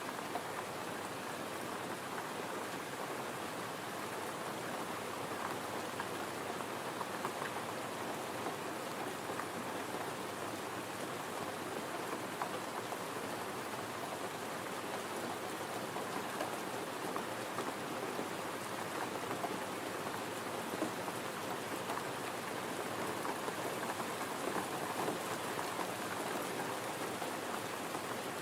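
Gentle rain falling steadily: an even hiss dotted with many small drop ticks, with no let-up.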